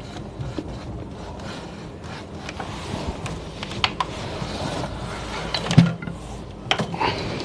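Steady room background noise with a few scattered short clicks and knocks, the loudest about six seconds in.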